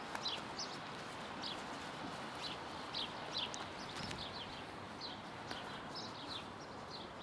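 Small birds chirping: many short, high, downward chirps, scattered and overlapping, over a steady background hiss.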